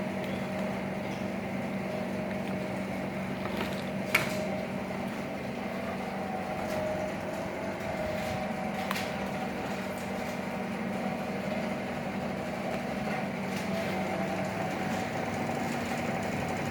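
Refrigerator compressor running with a steady hum while the refrigerator is charged with refrigerant, with a single sharp click about four seconds in.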